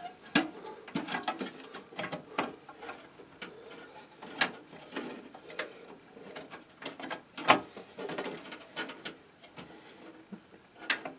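Irregular clicks, taps and light rubbing of a network card and computer case parts being handled, with sharper clicks about four, seven and a half and eleven seconds in.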